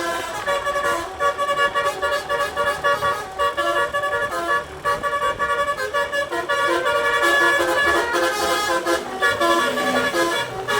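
A bus's DAV D3 telolet musical air horn playing a tune: a fast run of short horn notes, jumping between pitches several times a second.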